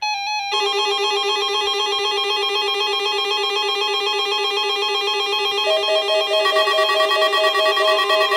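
Synthetic electronic tones warbling rapidly between pitches over a steady lower tone. A new pulsing tone joins about six seconds in.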